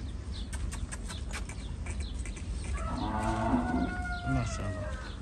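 Cattle mooing: one long call of about two seconds, starting a little past the middle, its pitch dropping slightly as it ends.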